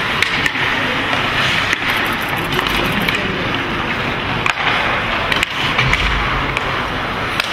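Ice hockey in play: skate blades scraping across the ice, with several sharp clacks of sticks and puck at irregular moments, over steady arena noise.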